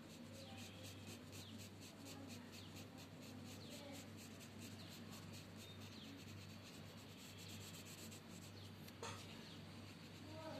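Faint scratching of a red coloured pencil shading back and forth on paper, a quick steady run of short strokes over a low steady hum. A single sharp click about nine seconds in.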